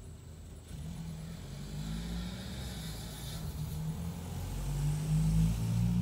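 A low motor or engine hum, steady at first, growing a little louder and rising slightly in pitch near the end.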